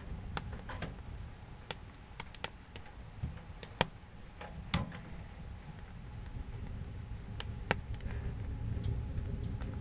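Wood fire burning inside a Kni-co Alaskan woodstove: irregular sharp crackles and pops over a low steady rumble.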